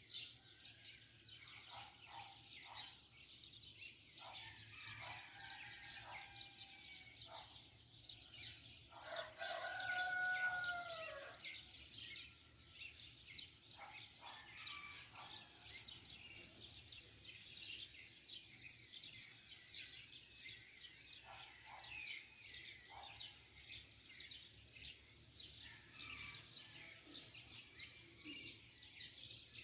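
Many small birds chirping in a dawn chorus. A rooster crows about nine seconds in; its one long crow, dropping in pitch at the end, is the loudest sound.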